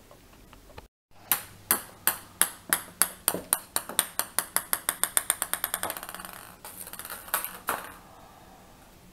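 A ping pong ball bouncing on a tiled floor: sharp ticks that come faster and faster as the bounces shrink, running together into a quick patter as the ball settles. A few more separate taps of the ball follow near the end.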